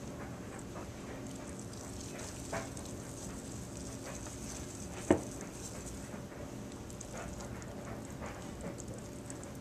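Soft, quiet handling sounds of cooked chicken being pulled apart and sifted by hand over a metal pan, with scattered faint ticks. One sharp knock about five seconds in stands out as the loudest sound, over a steady low room hum.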